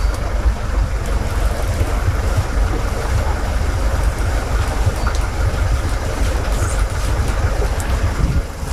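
Twin engines of a Jeanneau NC 37 motor yacht idling in a steady low rumble, dipping briefly near the end.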